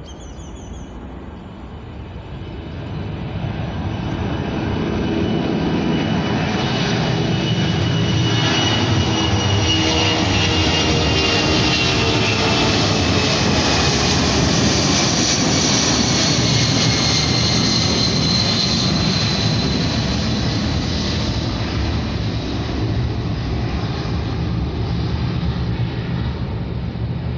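Boeing C-17 Globemaster III's four turbofan engines at takeoff power as the jet climbs out overhead: a loud jet roar that builds over the first few seconds, holds, and eases a little near the end. A high whine slides down in pitch as the aircraft passes.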